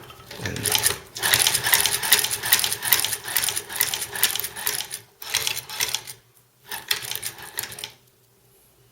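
Chinese leather patcher sewing machine, a Singer 29K-style walking-foot clone, stitching through two layers of thick vegetable-tanned leather: a fast run of clicking and clattering from the needle and shuttle mechanism. It comes in three runs with two short pauses and stops about a second before the end.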